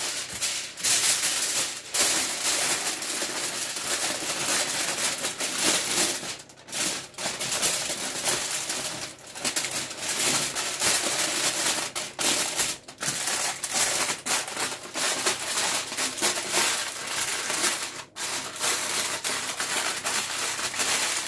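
Aluminium foil crinkling and crackling as hands fold, scrunch and press it tightly into a wrapped parcel. The crackling goes almost without a break, with a few short pauses.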